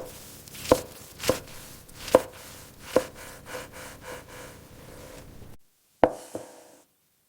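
Knife cutting fruit with a run of sharp chops: five strong ones in the first three seconds, then lighter ones. The sound stops abruptly, followed by one more chop and a small knock just after.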